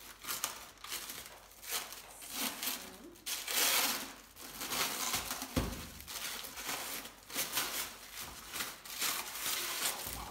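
Clear plastic wrapping crinkling in repeated bursts as it is pulled off a stainless-steel juicer part, with a single dull thump about halfway through.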